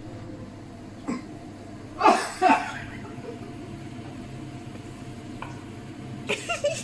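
A person coughing hard, two loud explosive bursts in quick succession about two seconds in, a cough that sounds like sneezing.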